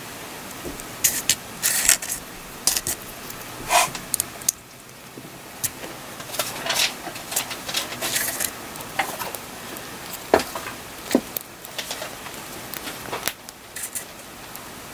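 Small plastic building bricks clicking and snapping together as a buildable figure is assembled by hand, with irregular sharp clicks throughout as pieces are pressed on and picked up off the table.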